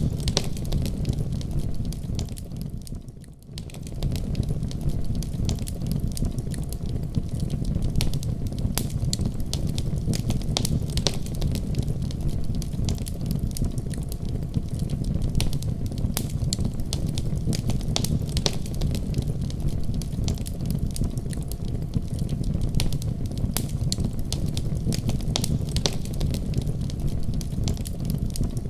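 Wood fire crackling in a fireplace: a steady low rumble of flames with many sharp, irregular pops and crackles. The sound briefly fades and comes back about three seconds in.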